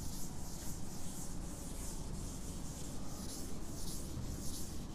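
Chalkboard duster wiping chalk off a chalkboard in repeated back-and-forth strokes, each a soft scrubbing hiss.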